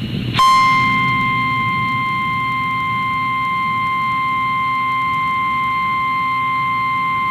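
Emergency Alert System attention signal: a single loud, steady electronic tone with faint overtones that starts abruptly about half a second in and holds without change, announcing the alert message.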